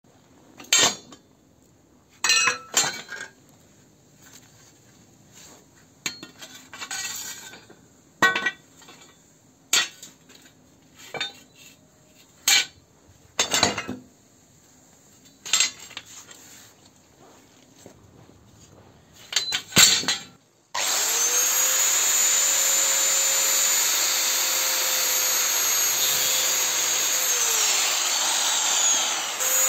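A dozen or so sharp metal clanks as steel bars and scrap iron are handled. About two-thirds of the way in, an electric angle grinder starts and runs steadily with a high whine, its pitch dipping briefly near the end.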